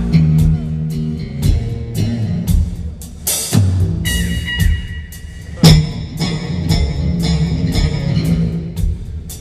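Live band playing: an electric bass and a hollow-body archtop electric guitar over a drum kit, with steady cymbal ticks keeping time and two sharp, loud drum accents about three and a half and five and a half seconds in.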